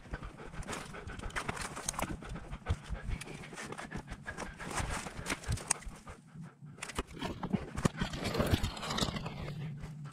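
Footsteps crunching through deep snow, with twigs and snow-laden branches brushing and snapping as someone pushes through thick brush. The steps pause briefly about six seconds in.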